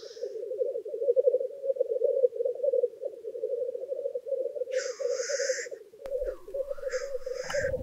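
Male black grouse lekking: a continuous bubbling, cooing rookoo chorus, broken by a hissing call from a cock about five seconds in and again near the end.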